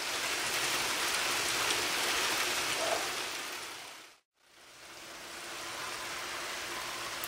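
Steady rain falling during a thunderstorm, an even hiss of rain on the street. It fades away about four seconds in, drops to silence for a moment, then fades back in.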